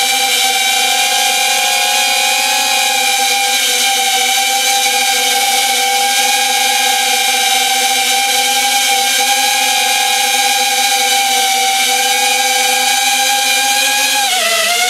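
FPV quadcopter's motors and propellers whining at a steady pitch, heard from the drone's own onboard camera microphone. Near the end the pitch drops briefly and climbs back as the throttle eases and picks up again.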